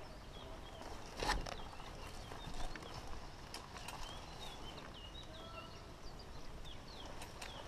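Footsteps through grass, with one sharp crack about a second in. Small birds chirp faintly from about halfway on.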